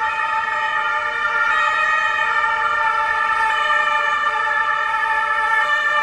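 Berlin police siren sounding continuously, loud and steady: several pitched tones held together, with no rising and falling wail.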